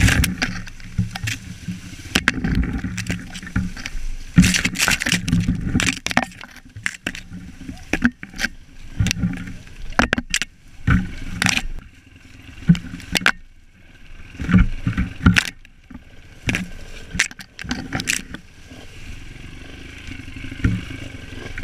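Off-road motorcycle engine running at low, uneven revs as the bike pushes through tall grass and brush, with many sharp knocks and swishes of stems and branches striking the bike and camera.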